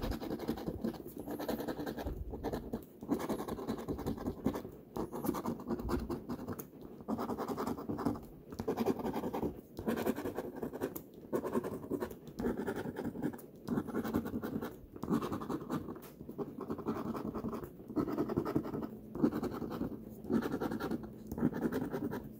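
Scratch-off lottery ticket (Colossal Cash) being scratched by hand, rapid rubbing strokes on the coating. The scratching comes in runs broken by short pauses every second or two.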